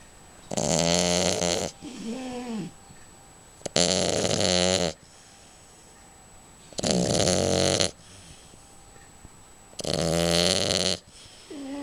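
French bulldog snoring: four loud, rattling snores about every three seconds, each lasting about a second, with a softer wheezy breath between the first two and another near the end.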